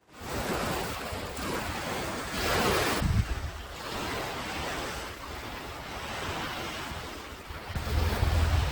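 Caspian Sea surf washing onto the beach, one wave breaking louder about two and a half seconds in, with wind buffeting the microphone as a low rumble near the end.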